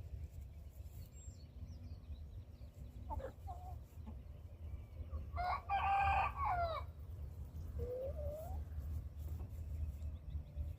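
A rooster crowing once, a loud call of about a second and a half in the middle, with a few short chicken calls before and after it.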